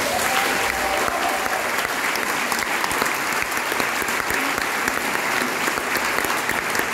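Audience applauding steadily at the end of a tango dance performance.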